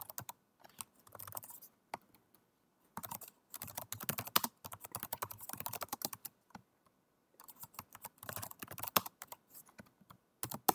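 Typing on a computer keyboard: quick runs of key clicks, with two short pauses of a second or so between runs.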